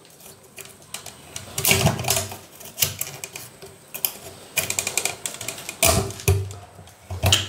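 Clicks and scrapes of a concealed flush cistern's flush plate being pressed and worked into its wall frame by hand, in irregular bursts.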